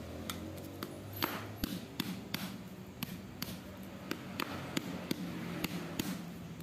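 Small hammer tapping around the edge of a dead zinc-carbon dry-cell battery to crack its casing open: a series of sharp taps, about two or three a second.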